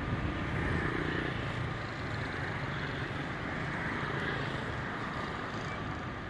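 Steady street traffic: cars and a motorbike driving through an intersection, a continuous hum of engines and tyres.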